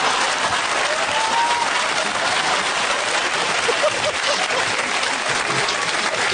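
Studio audience applauding, a steady dense clatter of many hands.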